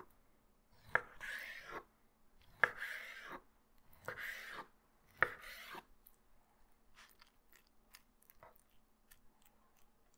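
Folding chef knife cutting raw chicken breast on a cutting board: four slicing strokes in the first six seconds, each beginning with a sharp tap of the blade on the board. After that, only a few faint light taps.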